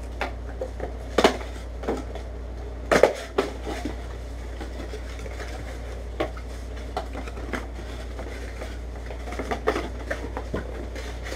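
Cardboard crate boxes being folded and refolded by hand: scattered flaps, taps and knocks of cardboard, the loudest about a second and three seconds in, over a steady low hum.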